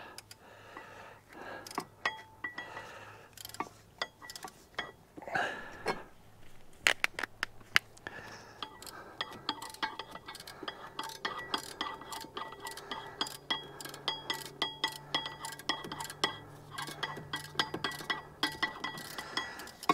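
Hand ratchet clicking in quick runs, with metallic clinks, as a bolt holding the engine-to-hydraulic-pump coupler is worked loose through the flywheel. The clicking grows dense and steady over the second half.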